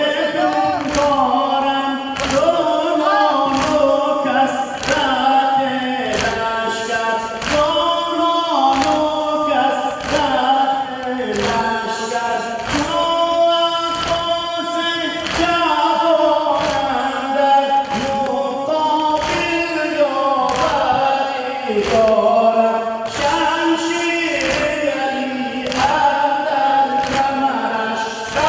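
A noha (Shia lament) sung through a sound system, with many voices joining in. Under it a steady beat of thumps about once a second comes from the mourners striking their chests in unison (matam).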